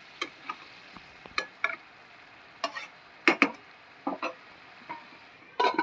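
A metal spatula scrapes and clinks against a metal pot as mutton and fenugreek leaves are stirred. There are about a dozen short, sharp strokes, irregularly spaced, over a faint sizzle of frying.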